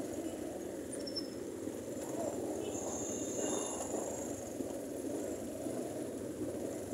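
Motorcycle underway at low speed: steady wind and road noise on the handlebar microphone, mixed with the bike's engine running.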